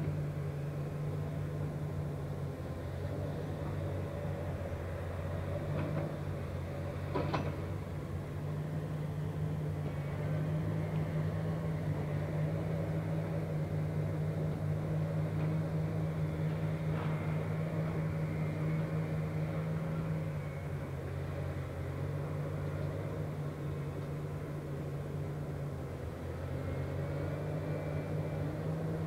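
Diesel engine of a Komatsu PC360 tracked excavator running steadily, its note getting louder and softer as it works. Two sharp metallic knocks about six and seven seconds in.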